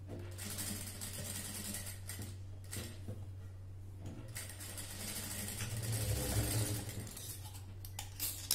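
Industrial lockstitch sewing machine running as it stitches a dart in blouse fabric, over a steady low motor hum, loudest in a spell about six seconds in.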